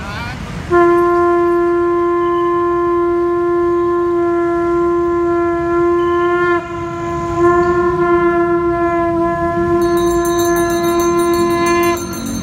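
Conch shell blown in two long steady blasts. The first lasts about six seconds; the second follows a short break and wavers slightly. A small bell starts ringing rapidly near the end.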